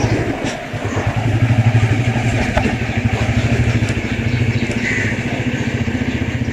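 Royal Enfield Meteor 350's single-cylinder engine running at low road speed, heard from the saddle as an even, rapid beat. The revs drop off briefly about half a second in and pick back up from about a second in.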